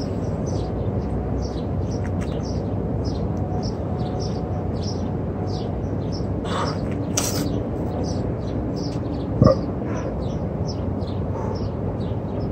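Steady low background rumble with a bird chirping over it, short high chirps repeating about three times a second. One brief louder sound comes about nine and a half seconds in.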